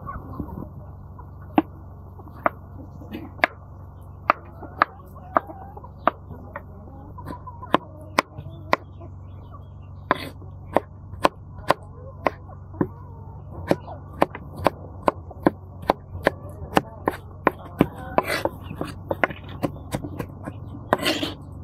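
Chef's knife cutting tomatoes on a wooden cutting board: sharp taps of the blade striking the board, spaced out at first while slicing, then quicker and more even while dicing.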